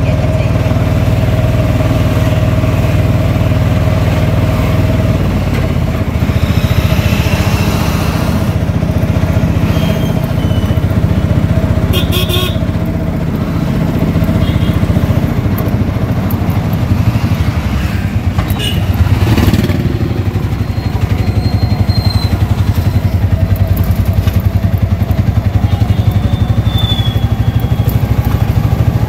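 Autorickshaw's single-cylinder engine running steadily as it drives along, heard from inside the cab, with a couple of brief louder noises about twelve and nineteen seconds in.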